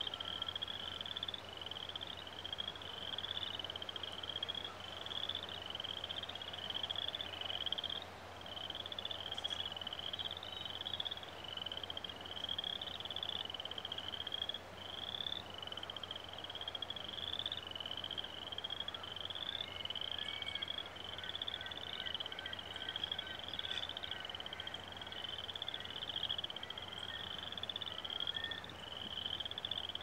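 A frog calling: one short, high, rising note repeated steadily about two to three times a second, without a break.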